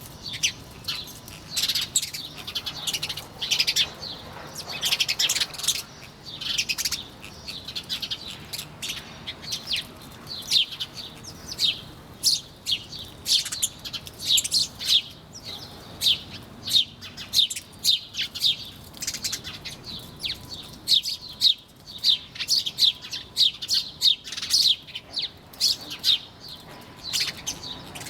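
Small birds chirping busily: a continuous run of short, high chirps, several a second, from more than one bird.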